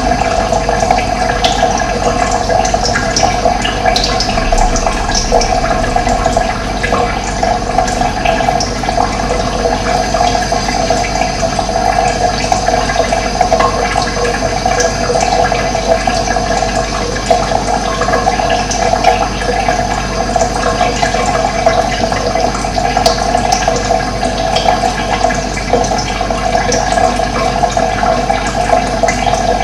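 Running water flowing steadily, with a few faint bird chirps above it here and there.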